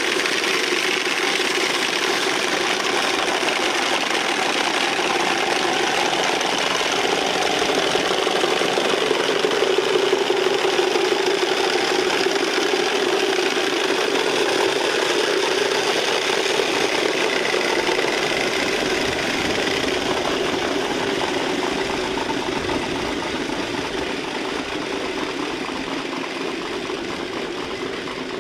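Several wooden Easter rattles (Klappern) being cranked together in a continuous, dense clattering that eases off a little in the last few seconds.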